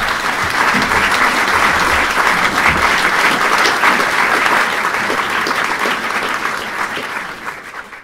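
Audience applauding, a dense clapping that fades away over the last couple of seconds.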